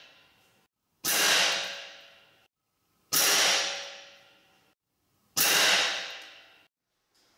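Three shots from a Gamo Black Fusion IGT .22 break-barrel gas-ram air rifle, about two seconds apart. Each is a sudden report that rings on in the indoor range and dies away over about a second.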